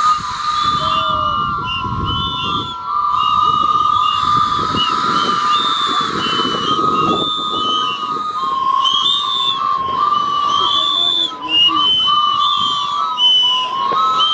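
A group of people blowing small wooden train whistles all at once: a dense, steady din of overlapping chord-like toots of many lengths, with breathy hiss.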